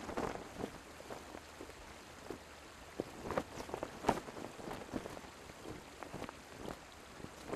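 Rain pattering on a surface: irregular ticks and taps over a faint steady hiss.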